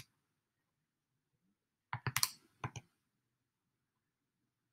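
Calculator keys being pressed: a quick run of light clicky taps about two seconds in, then two more, as a surface-area sum is keyed in.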